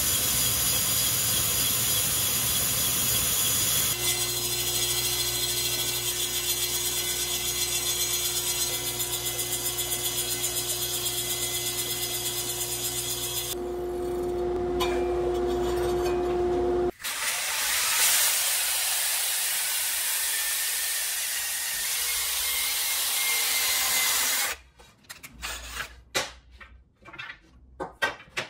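Cordless drill and table saw running together as a square wooden stick is spun through a dowel-making jig and shaved round by the blade, heard in several cut-together passes with a steady machine tone. Near the end the machines stop and wooden dowels knock and clack as they are handled.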